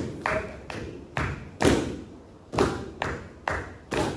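Bare feet stamping on a wooden stage floor in a steady beat, about two thuds a second, with a short gap about halfway through.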